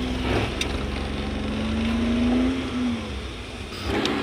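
Car engine and road rumble heard from inside the moving car's cabin, a steady hum whose pitch rises a little about two seconds in and falls back. Near the end it drops away briefly and a short knock is heard.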